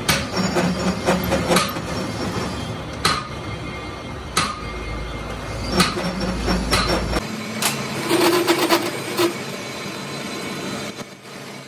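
Metal-on-metal strikes and clanks, several of them about a second or so apart, some ringing, over the steady hum of a running workshop machine. The hum stops abruptly about seven seconds in, and the clanking goes on.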